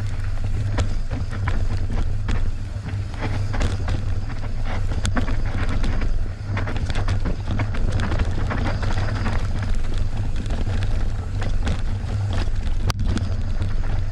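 A Merida One-Sixty full-suspension mountain bike running fast down a rough enduro trail. Steady wind buffeting on the microphone, with the bike rattling and knocking over the ground, and two sharper knocks, about five seconds in and near the end.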